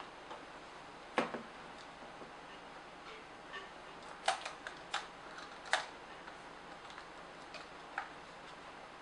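Scattered sharp clicks and taps of a small precision screwdriver and fingers on the plastic casing of a Nikon SB900 flash as it is handled for disassembly: one loud click about a second in, a quick cluster of clicks around four to six seconds in, and a last one near the end.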